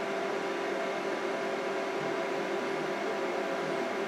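Anycubic Photon resin 3D printer's Z-axis stepper motor driving the build plate down while homing, a steady even motor hum with several fixed tones.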